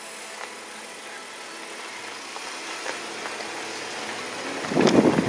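Jeep engine running steadily at crawling speed on a rocky dirt trail, a low hum with faint tyre and gravel noise. Near the end comes a louder rumble lasting about half a second.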